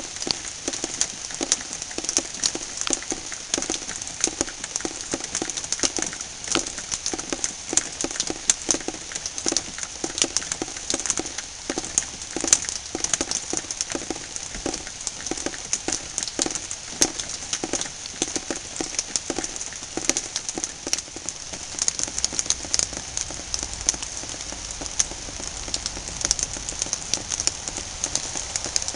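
Heavy rain hitting a hard surface, a dense patter of sharp drop impacts. Under it a lower knock repeats about twice a second and dies away about two-thirds of the way through.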